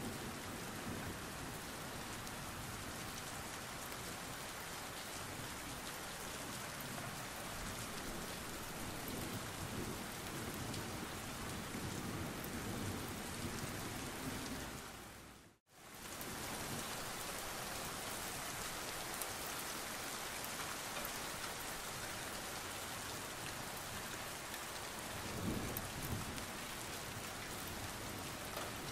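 Steady rain falling, an even dense hiss, with a low rumble twice. The sound fades out to silence for a moment about halfway through and comes straight back.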